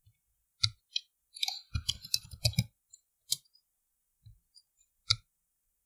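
Computer keyboard keystrokes typing a short word: a quick run of clicks about one and a half to two and a half seconds in, with a few separate single clicks before and after.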